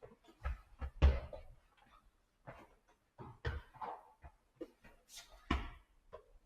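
A ball bouncing and knocking about: several separate sharp thumps, the loudest about a second in, with lighter knocks between.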